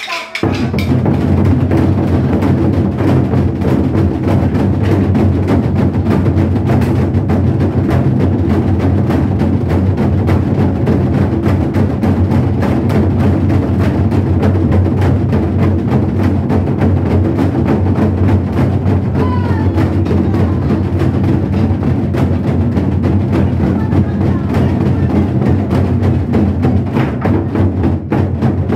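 Korean modeumbuk barrel drums played fast with sticks in nanta style: a dense, unbroken stream of drum strokes with sharp stick clicks.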